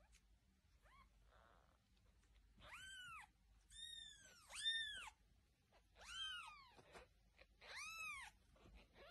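Newborn kittens mewing: about six short, high-pitched cries, each rising and then falling in pitch, with brief pauses between them.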